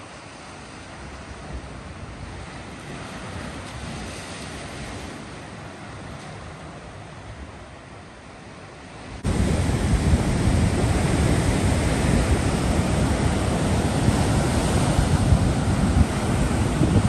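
Sea waves washing onto a sandy beach, softly at first; about nine seconds in, the sound jumps to louder, heavier surf breaking, with wind on the microphone.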